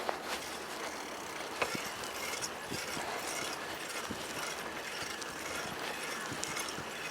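Bicycle in motion: a steady rush of rolling and wind noise with scattered mechanical clicks and rattles from the bike, and one sharper knock about a second and a half in.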